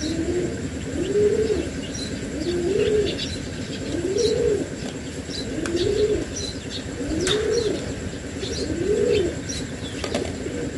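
A dove cooing over and over: about seven coos, roughly one every second and a half, each a single note that rises and falls. Faint high chirps of small birds sound behind it.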